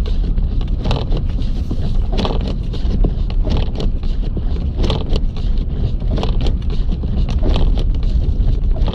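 Car driving through a blizzard, heard from inside: a steady low rumble of engine and road, with irregular short hissing swishes about every half second to a second.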